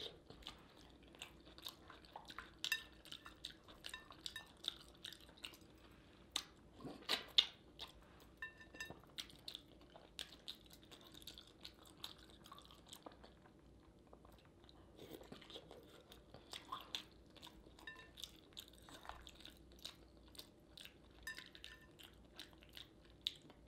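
A person chewing a saucy seafood meal close to the microphone: many short, wet smacks and clicks scattered throughout, with a few louder ones about seven seconds in.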